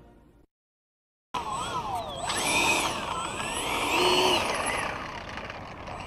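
After about a second of silence, a Freewing F-22 RC jet's twin 64 mm electric ducted fans whine, the pitch gliding up and down with the throttle as it taxis.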